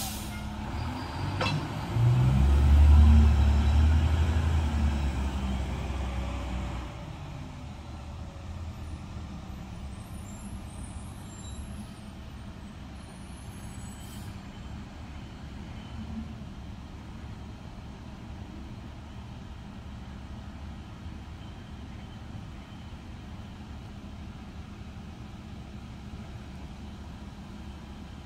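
Garbage truck engine revving hard as the truck pulls away, loud for several seconds and then fading to a faint distant running as it stops farther down the street.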